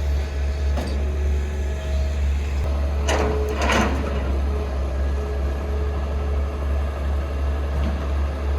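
Heavy diesel machinery engine running with a steady low rumble. Two short noisy bursts come about three seconds in.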